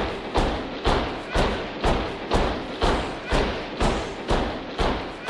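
Background music with a heavy, pounding drum beat, about two beats a second.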